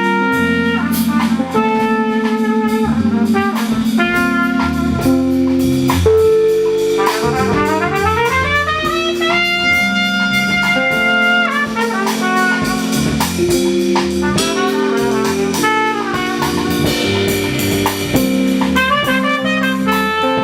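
Small jazz band playing: trumpet and guitar lines over keyboard bass and a drum kit. About seven seconds in, the lead slides steadily up in pitch into a long held note.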